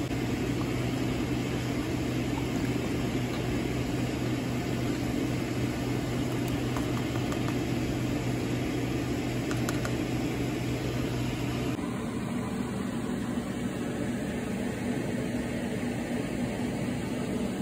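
Steady hum and hiss of a kitchen fan, with a few faint clicks of a ladle against the pot partway through. The hum changes character suddenly about twelve seconds in.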